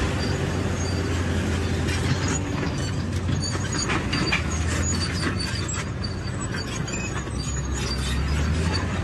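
Bulldozer's diesel engine running with a steady low drone while its steel tracks clank and squeal as it pushes a vehicle. Short high squeaks recur, with a cluster of clanks a few seconds in.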